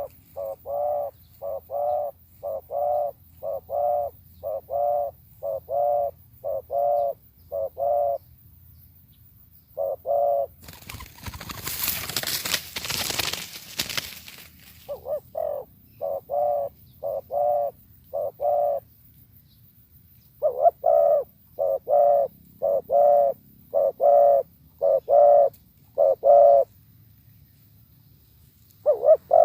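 Spotted dove cooing: a long series of short coos, about one and a half a second, in runs with short gaps. Near the middle, a rushing noise lasts about four seconds.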